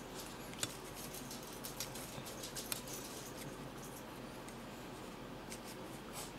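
Light paper handling: scattered small ticks and rustles as fingers place and press stickers onto a paper planner page, over a faint steady hiss.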